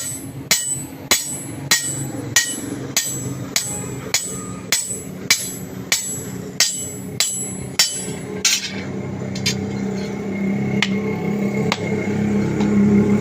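Blacksmith's hand hammer striking steel in a steady rhythm, about three blows every two seconds, each blow ringing briefly; the rhythm stops about eight and a half seconds in, leaving a few scattered blows over a steady low hum.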